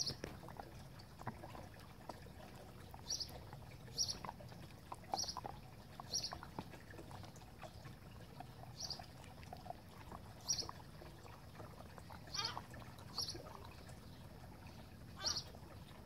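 A Border Collie–Husky cross chewing a Dentastix dental chew: wet chewing and gnawing, with short sharp crunches about every second or so.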